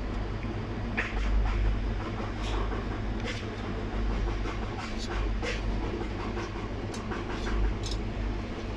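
Metal kebab skewers clicking and scraping against a stainless-steel grill rack as they are set in place, a scatter of short sharp clicks over a steady low hum.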